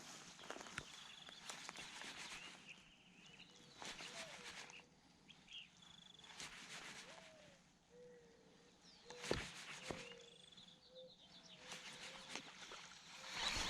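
Quiet outdoor ambience with birds chirping and calling, and a few scattered knocks and rustles.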